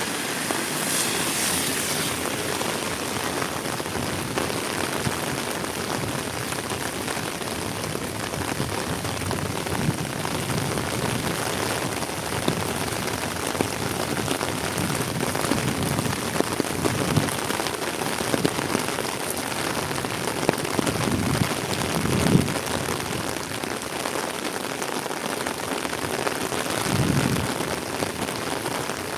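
Heavy rain falling steadily, with a few brief louder low swells in the second half.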